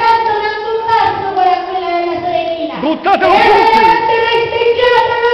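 Children singing together in two long held notes, breaking off briefly about three seconds in before holding the next note.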